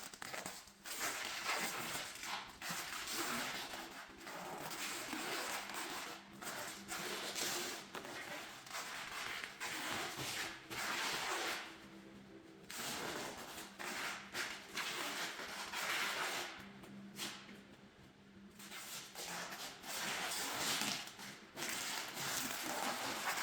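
Packing material being handled and wrapped: irregular spells of rustling noise, broken by short pauses every few seconds.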